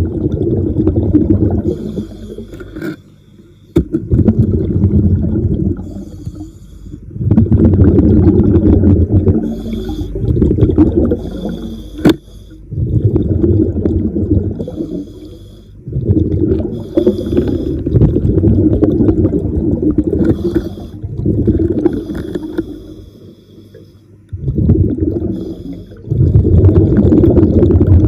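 Diver breathing underwater through a regulator: a run of exhaled bubbles rumbles and gurgles for a few seconds at a time, about seven times, with a thin hiss of the inhale in the short gaps between.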